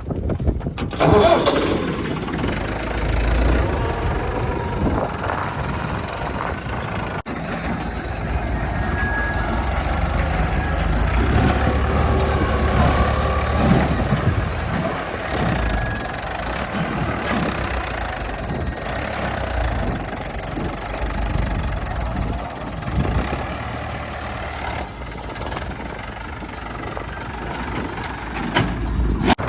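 Engine of heavy machinery running, its rumble rising and falling in loudness and strongest for a few seconds around the middle.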